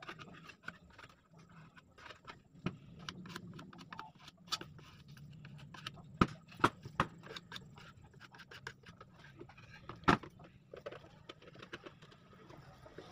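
Plywood shelf pieces being handled and worked on a wooden workbench: scraping and rubbing, with sharp knocks of wood on wood, three within about a second midway and one more later.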